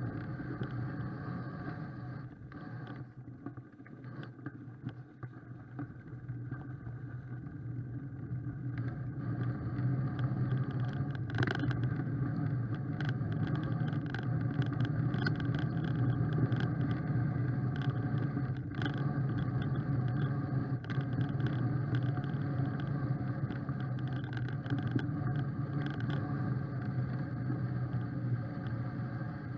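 Mountain bike riding along a leaf-covered woodland trail: steady rumble of tyres and frame, with scattered knocks and rattles over bumps, getting louder from about ten seconds in.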